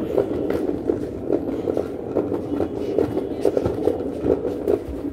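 A child's plastic ride-on toy car rolling across a tiled floor: a steady rumble from its hard wheels, with frequent irregular clicks and rattles.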